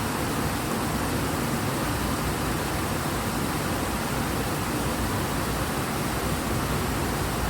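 Fast-flowing river water rushing strongly, a steady, unbroken roar of water.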